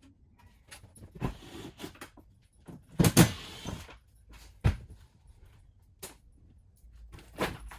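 A series of irregular clunks and knocks from tools and metal hardware being worked in a bare school bus, the loudest about three seconds in and another sharp knock near five seconds.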